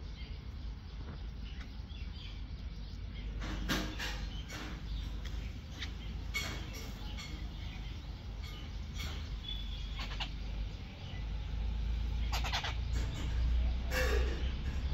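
Outdoor ambience: a steady low rumble, such as wind on the microphone, that grows louder in the last few seconds, with scattered sharp clicks and a few faint bird chirps.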